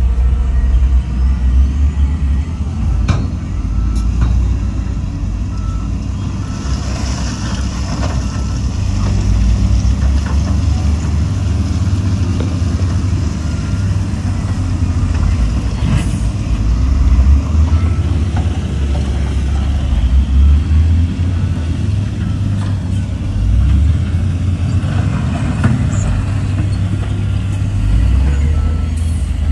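Heavy diesel engines of a dump truck and wheel loader running, a steady deep rumble that swells and eases as the machines work. A reversing beeper sounds in short repeated beeps during the first few seconds.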